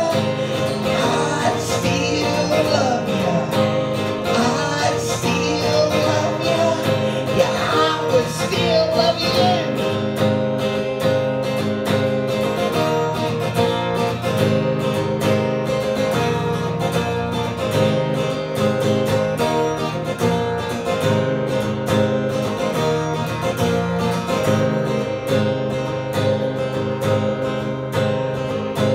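Acoustic guitar strummed steadily, with a man singing over it for roughly the first nine seconds, then the guitar playing on alone.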